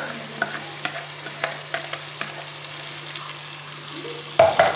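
Chicken pieces frying gently in oil in a pot on a low flame as the blended green masala paste is poured in, with a soft sizzle and scattered light clicks and taps. A louder clatter comes about four and a half seconds in.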